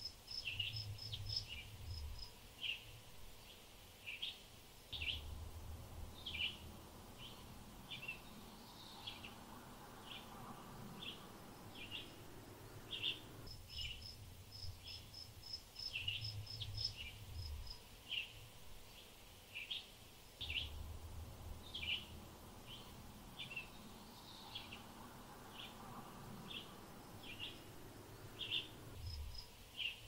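Small songbirds chirping: short chirps every half second to a second, with quick runs of high pips now and then, over a faint low rumble that comes and goes.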